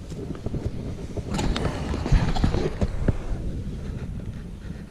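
Handling noise: scattered small clicks and knocks with a rustling stretch in the middle, over a steady low rumble.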